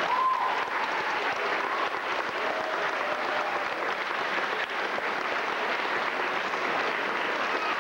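Audience applauding steadily, with a voice or two calling out over the clapping in the first couple of seconds.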